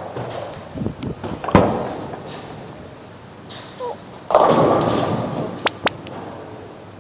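Bowling alley impacts: a sharp thud about a second and a half in, then a bowling ball crashing into the pins a little after four seconds in, the clatter dying away over a second or so, followed by two sharp clacks.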